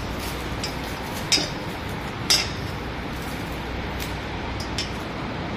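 A few sharp metallic clinks and taps as the metal and plastic parts of a ceiling-mounted surgical light's suspension arm are handled and fitted together, the loudest a little over two seconds in, over a steady low hum.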